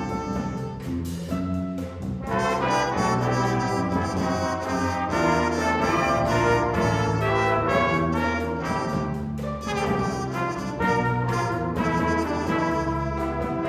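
High school concert band playing held chords, with brass prominent over sustained low notes. The sound thins briefly between phrases about two seconds in and again near ten seconds.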